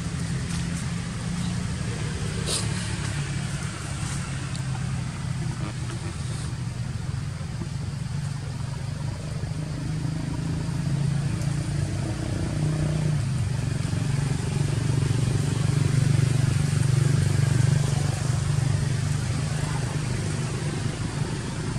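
A steady low rumble that swells a little in the second half, with a single sharp click a couple of seconds in.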